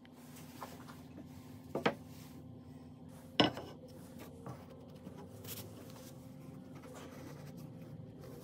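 Wooden table-leg pieces of rubberwood and merbau knocking as they are set down and handled on a wooden workbench: a quick double knock about two seconds in and a sharper, louder knock about a second and a half later, with a few faint ticks. A steady low hum sits underneath.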